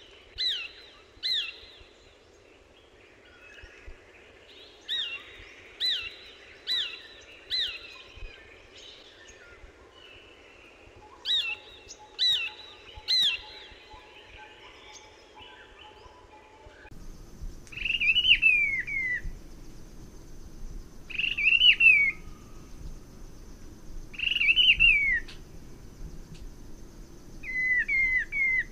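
Birds calling: short, sharply falling notes repeated in quick runs for the first part, then, from about seventeen seconds in, longer descending calls roughly every three seconds over a steady high-pitched drone.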